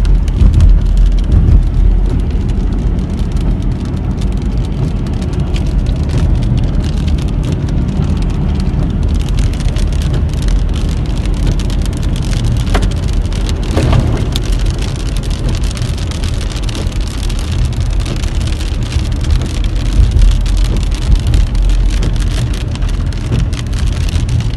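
Hailstones drumming on the roof and windshield of a moving car, heard from inside the cabin as dense fast ticking over the low rumble of the car on the road.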